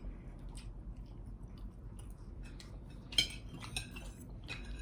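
Cutlery clinking lightly against plates during a meal: a few scattered clinks, the loudest about three seconds in.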